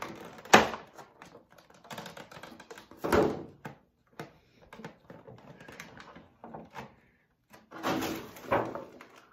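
Handling noises of objects being moved and picked up: a sharp knock about half a second in, then scattered knocks and rustles, with louder bursts around three and eight seconds.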